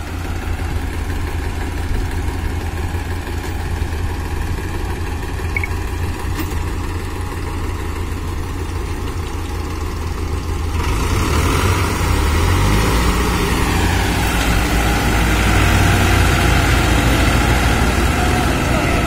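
Diesel tractor engines running under load while hitched tractors pull a brick-laden trolley stuck in mud; about eleven seconds in the engines open up and run louder and harder as they strain to drag it free.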